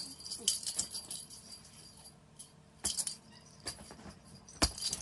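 Metal ID tags on cats' collars jingling in scattered, irregular clinks as the cats move and play, with a dull thump near the end.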